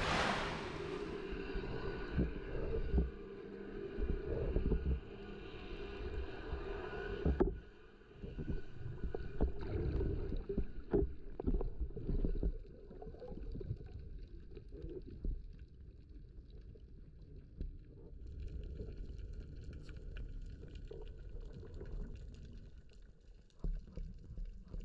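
Muffled underwater sound picked up by a camera in the sea: a low rumble with irregular knocks and clicks.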